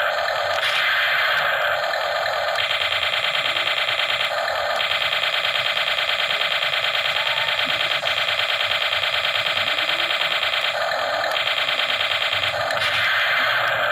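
Electronic sound effects played through a toy RC tank's small built-in speaker: a fast, steady pulsing buzz that switches several times to a short rougher hiss. The sound is tinny, with almost no bass.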